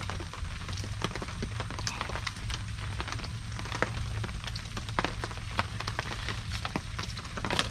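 Irrigation pump engine running with a steady low hum, under irregular crackling and clicks from the hose coupling being handled.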